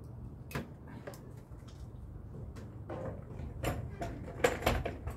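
Wooden pestle knocking in a clay mortar while pounding papaya salad: a run of about ten short, uneven knocks, the loudest about four and a half seconds in.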